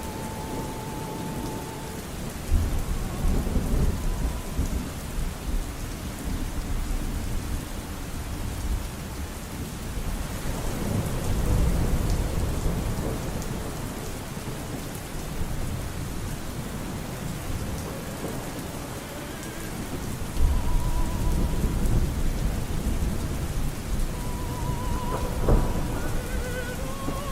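Steady rain with deep rolls of thunder, three times. A faint operatic singing voice with vibrato fades out in the first couple of seconds and returns near the end.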